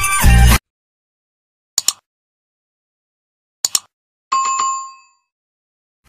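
Music cuts off just after the start, then two quick double clicks about two seconds apart and a single bright bell ding that rings out for under a second: the click-and-notification-bell sound effect of a subscribe-button animation.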